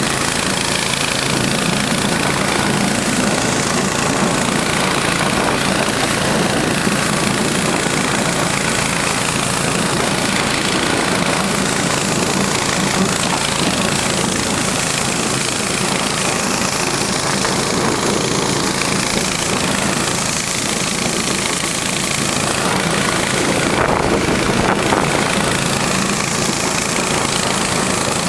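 Small engine of a motor-dog (motorized snow tug) running steadily while under way, with a slight swell in loudness near the end.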